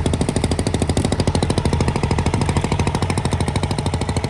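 A fishing boat's engine running steadily with a fast, even pulse.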